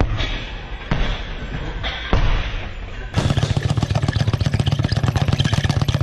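Gloved punches thudding into heavy bags, a few separate blows in the first half. About three seconds in, this gives way to the rapid, steady rattle of a speed bag being worked, many strikes a second as it rebounds off its platform.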